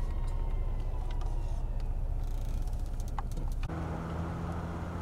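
Road noise inside a moving car's cabin, a steady low rumble with a few scattered clicks. About 3.7 s in it cuts abruptly to a steady low hum with a droning pitch.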